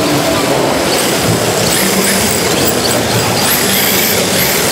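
Busy exhibition-hall din around an indoor track where 1:10 electric RC drift cars run. A few high-pitched whines rise and fall as the cars speed up and slow, about two seconds in and again near the end.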